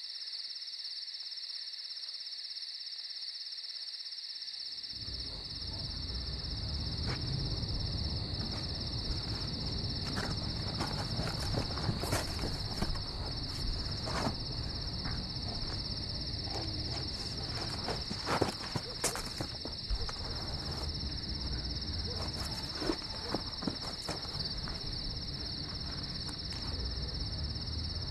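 Crickets chirping in a steady high trill. About five seconds in a low rumble comes in, with scattered soft knocks and rustles.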